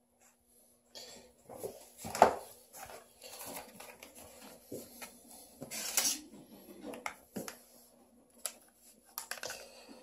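Handling noise: irregular light clicks, taps and rustles of hands and small objects, with a sharp knock about two seconds in and a louder scrape around six seconds in, over a faint steady hum.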